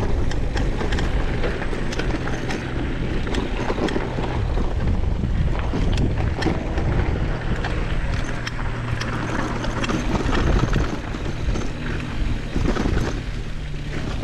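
Downhill mountain bike rolling down a dirt trail: wind buffeting the microphone over steady tyre noise, with frequent rattles and knocks from the bike over rough ground.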